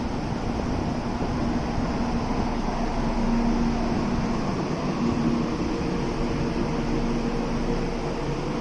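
Steady hum of a train standing at the platform, its air conditioning and auxiliary machinery running. A second, higher steady tone joins about six seconds in.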